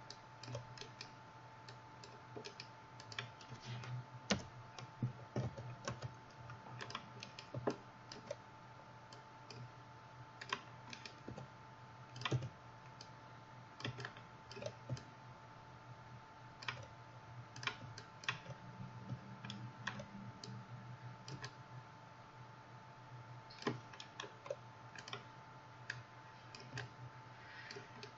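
Scattered, irregular clicks of a computer mouse and keyboard, over a faint steady hum.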